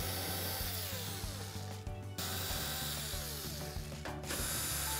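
Cordless drill-driver backing screws out of a dryer's sheet-metal top panel, the motor whirring in three runs, each broken off briefly, about two seconds in and again about four seconds in.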